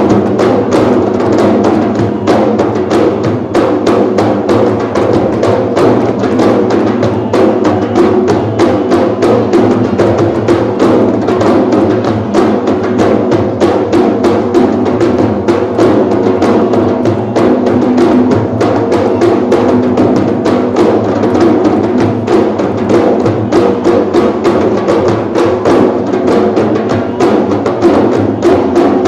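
An ensemble of large hand-struck frame drums (rebana) playing together in a fast, steady, driving rhythm.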